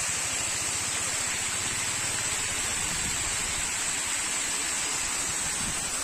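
Waterfall: a steady rush of falling water.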